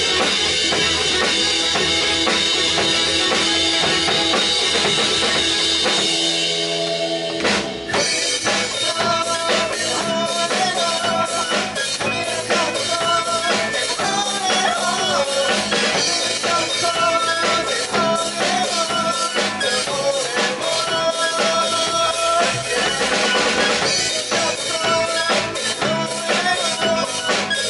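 Rock band playing an instrumental passage: drum kit with guitar, bass and keyboard. About six seconds in, the drums and bass drop out under a held chord, and a drum hit brings the full band back in about two seconds later.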